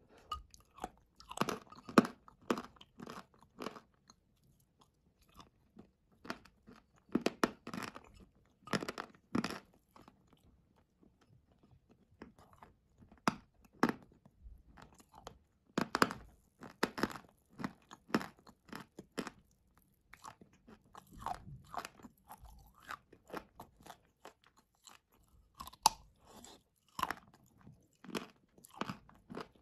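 A person biting and chewing mouthfuls of wet blue clay paste (Ural and Uzbek blue clay). The mouth sounds come in runs of a few seconds with short pauses between.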